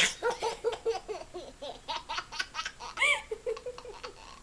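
A 16-month-old toddler laughing in a fast run of short, high-pitched bursts, with a higher squeal about three seconds in.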